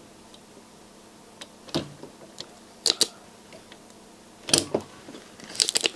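Scattered light clicks and taps of small tools and parts being handled at an electronics repair bench: a double click about three seconds in and a quick run of clicks near the end, over a faint steady hum.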